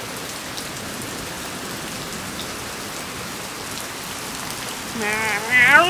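Heavy rain pouring down steadily. Near the end a person's high, wavering voice starts up over it.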